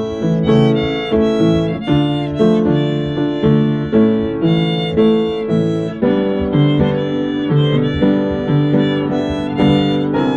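Violin playing a pop melody with upright piano accompaniment, the piano chords struck in a steady, even rhythm under the violin's held notes.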